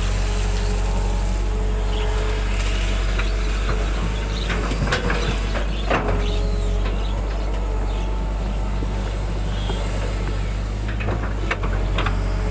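Excavator's diesel engine running steadily under load, with a few sharp knocks and clanks about five to six seconds in and again near the end.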